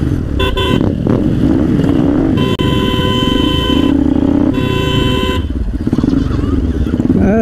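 Vehicle horn honking over a running motorcycle engine and wind noise: a few short toots about half a second in, then two longer honks of about a second each near the middle.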